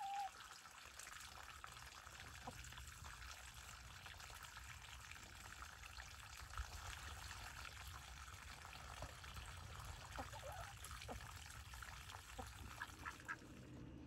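Faint outdoor ambience with chickens clucking now and then: a short rising call near the start and a few soft clucks about two-thirds of the way in.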